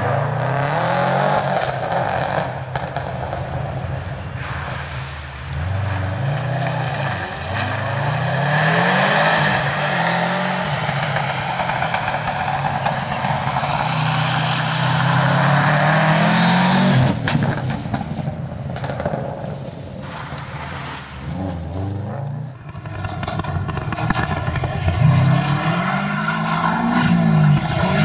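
Subaru Impreza rally cars' flat-four engines driven hard, the pitch climbing and dropping back again and again through gear changes and lifts, over several passes.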